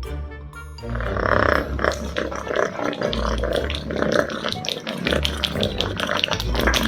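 Animal noises, loud and full of clicks, starting about a second in, over background music with a steady low bass.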